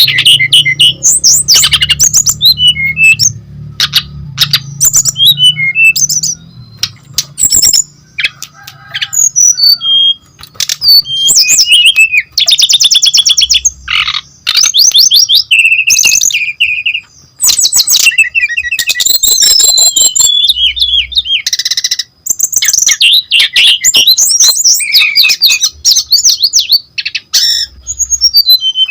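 Brown-chested jungle flycatcher singing loudly in a long, varied song of quick whistled phrases, fast trills and chattering runs with only brief pauses.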